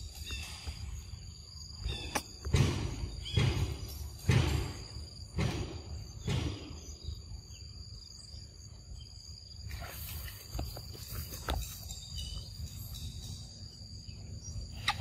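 Footsteps on the forest floor, five dull steps about a second apart in the first half, then a few light rustles and clicks. A steady high-pitched tone runs underneath.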